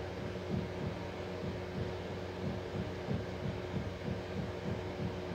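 Steady low mechanical hum with a fast, even low-pitched pulsing, about three pulses a second, like a motor or fan running.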